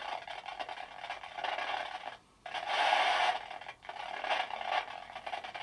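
Spirit box radio static hissing in uneven surges as it sweeps, cutting out briefly about two seconds in.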